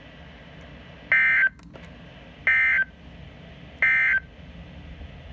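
Emergency Alert System end-of-message signal: three short, identical bursts of SAME digital data tones, a buzzing warble about a second and a half apart, marking the end of the alert.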